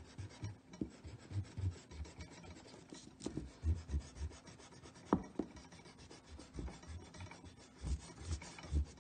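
Block eraser rubbing back and forth on drawing paper, erasing pencil sketch lines, in quick irregular strokes, with a couple of sharper ticks around the middle.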